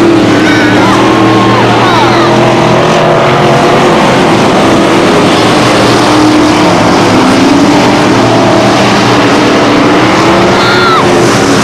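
A pack of dirt-track stock car engines running hard around the oval. It is a loud, continuous engine din with several pitches rising and falling as cars accelerate and lift through the turns.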